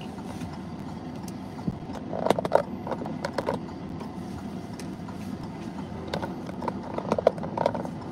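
Steady low road rumble from inside a moving car, with scattered short clicks and knocks in clusters about two seconds in, around three and a half seconds in, and near the end.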